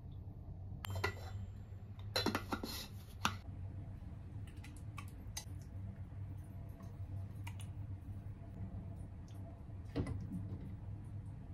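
Clinks and taps of kitchen utensils: a metal spoon against a ceramic bowl, then a spatula scraping and stirring curry in a frying pan. There is a cluster of sharp clicks in the first few seconds and lighter scattered ticks after, over a steady low hum.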